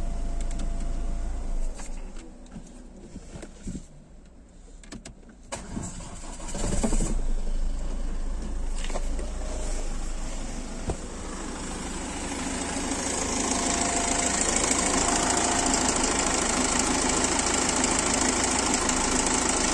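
Ford Kuga 2.0 TDCi (UFBA) four-cylinder diesel engine idling, cutting out about two seconds in, then cranked and restarted about six seconds in and idling steadily. It is louder near the end, heard close up from the open engine bay.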